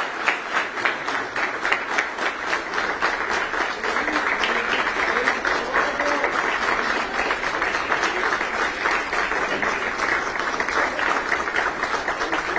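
An audience applauding steadily: many hands clapping at once in a continuous, even patter.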